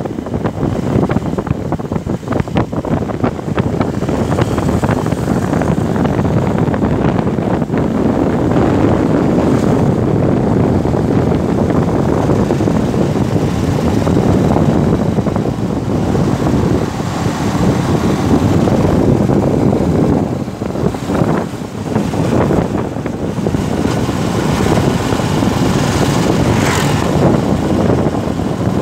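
Wind rushing over the microphone of a moving motorbike, a loud steady rush with the vehicle's running noise beneath it. It eases briefly about twenty seconds in.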